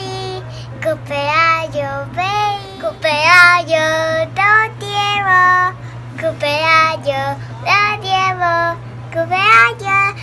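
A young girl singing alone in a high voice, in short phrases of held notes that bend and slide in pitch.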